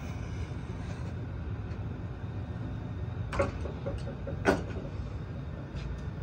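Two sharp clicks about a second apart, a little past halfway, while the old rubber grip is cut off a golf club shaft with a hook blade. A steady low rumble runs underneath.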